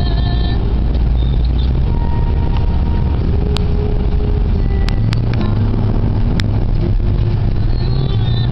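Car engine and road noise heard from inside the cabin: a steady low rumble. A few sharp clicks come through it about halfway in.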